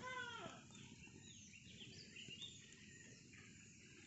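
A rooster's crow tails off in the first half second. Then a few small birds chirp faintly, with short, high, falling notes, against quiet background noise.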